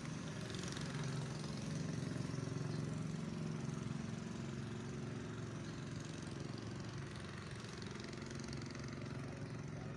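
An engine running steadily at an even pitch, slowly growing fainter.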